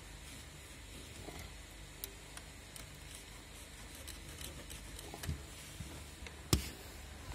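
Faint scattered clicks and plastic rattles from a screwdriver turning the screw under a Renault Sandero's steering-column switch cluster and from the cluster being worked loose. One sharper click comes about six and a half seconds in.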